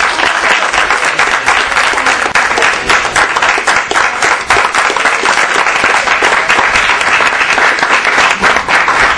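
An audience applauding: many people clapping together, steady and sustained.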